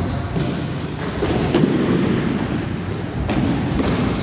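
Futsal ball being kicked and bouncing on a wooden gym floor: a few sharp thuds, loudest about a second and a half in and again just past three seconds, ringing in a large hall over the scuffle of players' feet.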